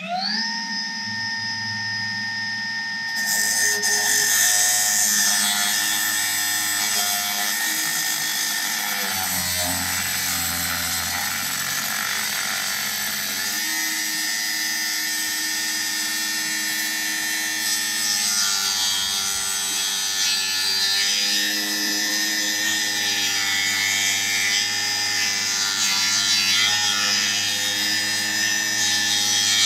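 Milwaukee M18 FUEL 9-inch brushless cordless cut-off saw spinning up with a rising whine, then its steel-cutting blade grinding through a piece of hard, high-carbon steel from about three seconds in: a steady motor whine under a harsh hiss of the cut.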